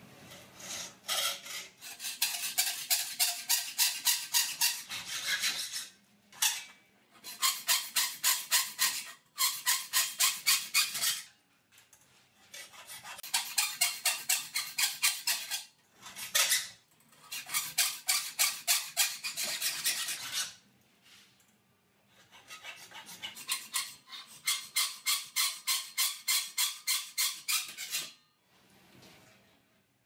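Hand hacksaw cutting V cuts into metal cable tray held in a vise: quick rasping strokes, about four a second, in several runs of a few seconds with short pauses between.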